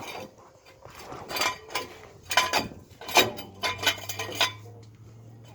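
Steel jack stand clinking and knocking as it is handled and positioned under the truck, several sharp separate metal knocks. A low steady hum comes in a little past halfway.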